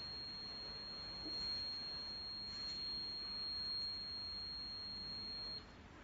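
Minipex apex locator giving a continuous high-pitched alert tone, the signal that the file tip has passed the apex (the 'OVER' reading). The tone cuts off suddenly near the end as the file is drawn back.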